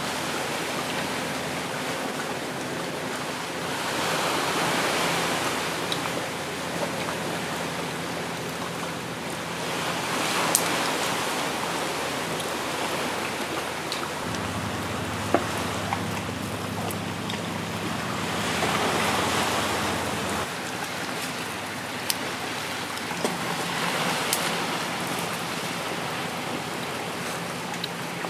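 Sea waves washing onto a rocky shore, swelling and easing about every five seconds, with a few sharp clicks.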